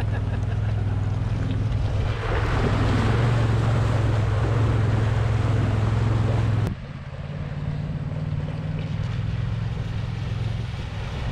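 Side-by-side UTV engine running steadily as the machine drives into a creek. For a few seconds, water rushes and sprays off the front tyre loudly. It cuts off suddenly to a quieter engine hum with water splashing at a distance.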